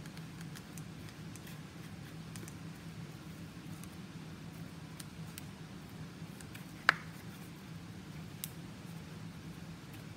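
Paintbrush dabbing and brushing paint onto a cardboard paper towel roll, faint scratchy taps over a low steady room hum, with one sharp tap about seven seconds in and a smaller one shortly after.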